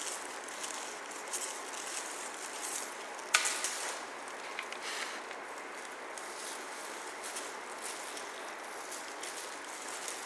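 Light rustling and crinkling as kittens bat at a wand toy with shiny streamers and feathers, over a steady hiss. A sharp tap stands out about three seconds in.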